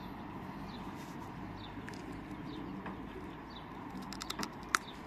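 Quiet outdoor background with small birds giving short, faint falling chirps now and then. About four seconds in comes a quick run of sharp clicks, ending in one louder click.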